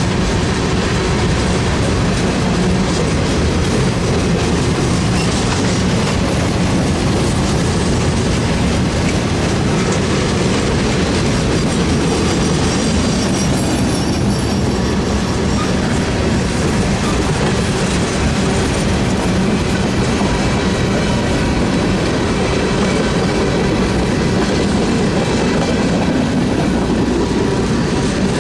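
A train running on the rails: a steady, loud rumble of wheels on track that holds at an even level.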